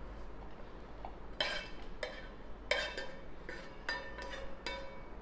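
Spatula knocking and scraping against a nonstick frying pan as stir-fried vegetables are pushed out onto a plate: a run of about seven sharp knocks with short clinks, starting about a second and a half in.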